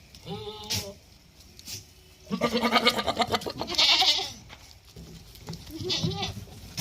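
Ganjam-breed goats bleating: several separate calls, the loudest a long quavering bleat about two and a half seconds in.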